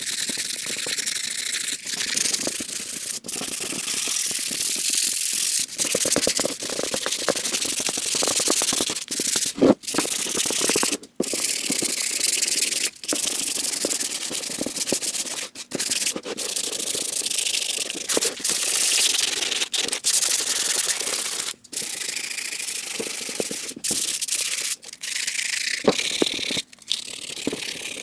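220-grit sandpaper rubbed over a helmet mask, a continuous scratchy hiss with brief breaks between runs of strokes. The surface is being scuffed to prepare it for primer.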